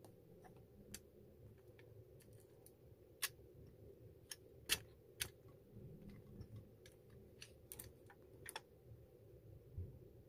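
Faint, scattered clicks and light taps of small plastic and metal parts being handled as a digital door lock's front panel is taken apart, with the sharpest clicks a few seconds in.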